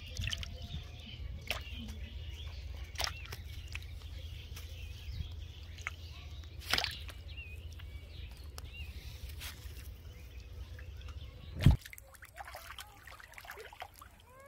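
Birds chirping over a steady low rumble, with scattered sharp clicks while hands work a catch out of a cast net. A loud thump comes about twelve seconds in, and the rumble stops after it.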